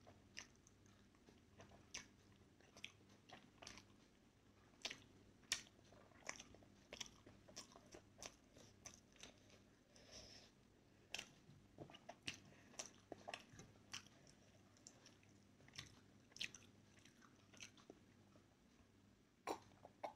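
Faint, close-up chewing of steamed momo dumplings: irregular wet mouth clicks and smacks.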